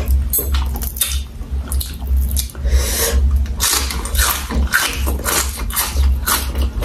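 Close-miked wet chewing and lip-smacking as a raw green vegetable dipped in prahok is eaten, in irregular moist clicks and squelches. A steady low hum runs underneath.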